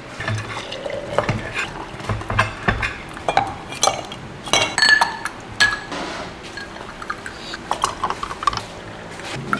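Ice cubes dropped into a glass mason-jar mug of coffee, clinking sharply against the glass in an irregular run, loudest about five seconds in and thinning out after about six seconds.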